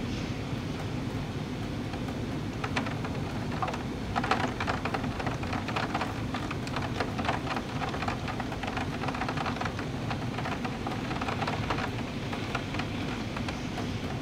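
Steady rain, with a dense patter of close drops ticking and a low steady rumble underneath.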